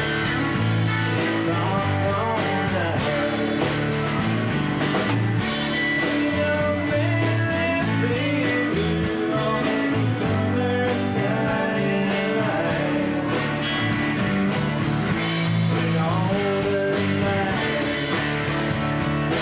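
Live band playing with electric bass, electric guitar and drum kit; a melodic line runs over the steady beat.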